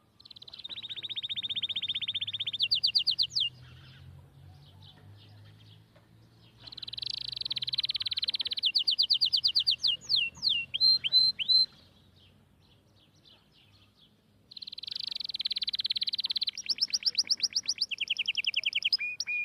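A songbird singing three song phrases, starting about 7 s and about 14.5 s apart. Each phrase opens with a long, fast, high trill that turns into louder separate notes and ends in short chirps.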